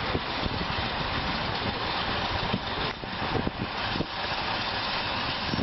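Ural truck engine running steadily with a low rumble.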